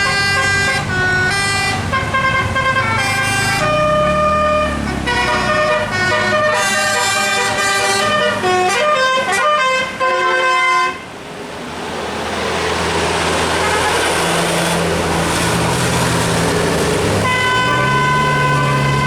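A bus's multi-note musical air horn (telolet) playing a quick tune, jumping to a new note every fraction of a second, for about the first eleven seconds. It then breaks off into a loud rushing noise with an engine running underneath, and the horn sounds again near the end.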